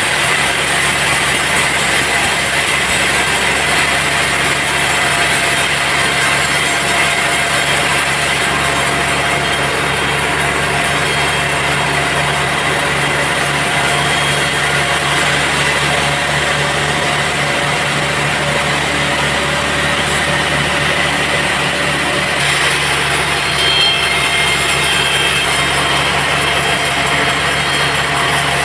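Band sawmill machinery running steadily, a continuous loud mechanical hum with a few steady tones and no breaks.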